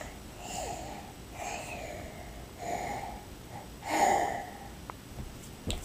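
A toddler fake snoring: four short snores about a second apart, the last the loudest.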